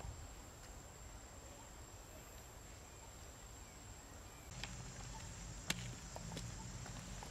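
Faint outdoor ambience: a steady high-pitched insect drone, with a few sharp clicks in the second half, the loudest a little before six seconds in.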